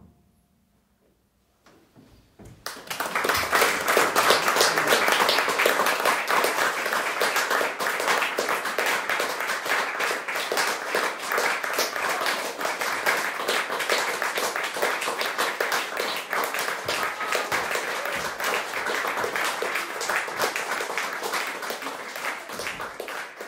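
A small audience applauding, the clapping breaking out about two seconds in after a brief silence and holding steady.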